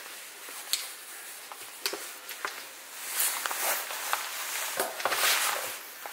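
Hands handling an open-face helmet, the padded liner and shell rustling and rubbing, with scattered small clicks and knocks. The rustling grows louder from about three seconds in to about five and a half.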